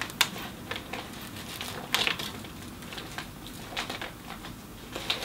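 Stiff gele headwrap fabric rustling and crinkling under the hands as it is pushed and pressed firm, in irregular crackles, the loudest about two seconds in.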